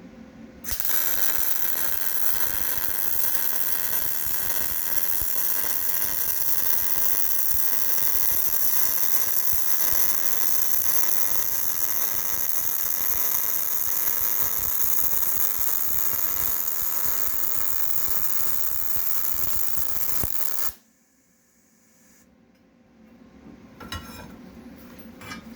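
Vulcan MIGMax 215 MIG welder laying a continuous vertical-down bead: a steady arc sizzle that starts a moment in, runs about twenty seconds and stops abruptly when the trigger is released. A few faint clicks follow near the end.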